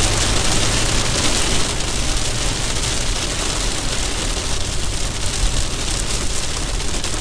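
Heavy rain beating on a car's roof and windscreen, heard from inside the moving car as a loud, steady hiss with a low rumble underneath.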